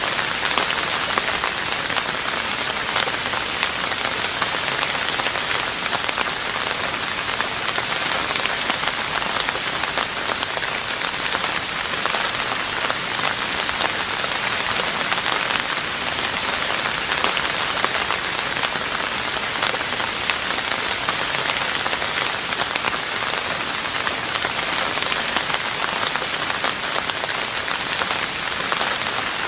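Steady rain falling on a roof: a dense, even hiss of countless drops, with no let-up.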